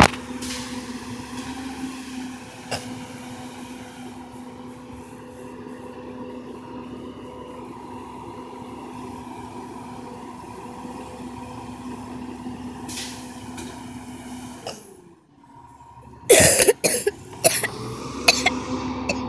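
Garbage truck engine and hydraulics running with a steady pitched hum, cutting off about three-quarters of the way through. Several loud, sharp bursts follow near the end.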